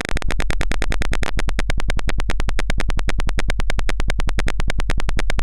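Simulated piezo buzzer of an Arduino fire alarm sounding through the computer's speakers, a harsh electronic buzz pulsing about a dozen times a second without pause: the alarm triggered by a smoke-sensor reading above its threshold of 100.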